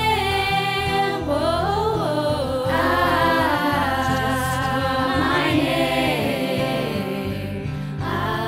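Music: a choir singing slow held notes with vibrato over a sustained low accompaniment.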